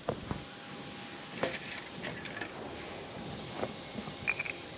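Cats eating wet food from a styrofoam tray: scattered soft clicks and smacks of chewing, and a second foam tray set down on the ground near the end with a brief high squeak.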